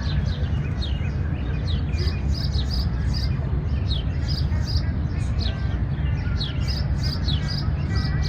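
Many small birds chirping continuously: short, quick down-slurred chirps overlapping one another, over a steady low rumble.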